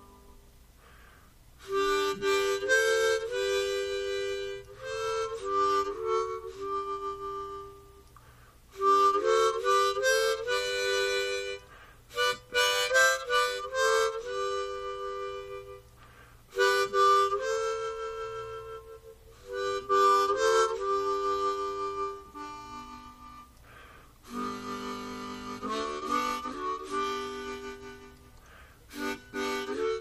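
Harmonica music: chords of two or three notes played together in phrases about six seconds long, with short breaks between them.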